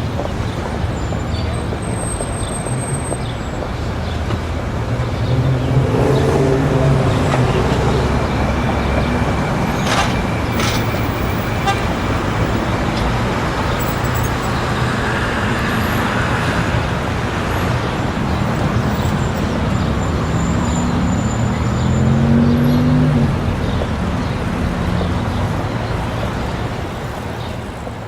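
Busy city street ambience: a steady wash of traffic noise with the hubbub of a street crowd. Vehicles pass, swelling louder about six seconds in and again near the end.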